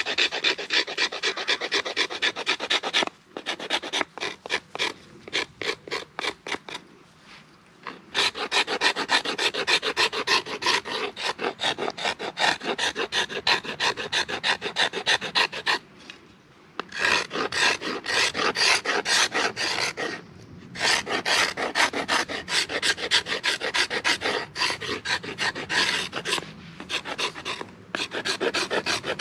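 A hand tool scraping back and forth on wood in fast, even strokes, like sawing or rasping. It runs in several long spells broken by short pauses.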